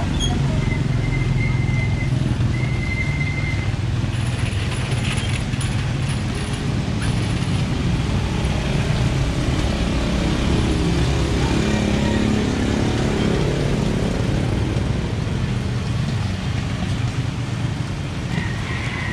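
Road traffic: vehicle engines running and passing close by over a steady low rumble. One vehicle's engine note rises and falls as it goes past about two-thirds of the way through. Two short high-pitched tones sound near the start.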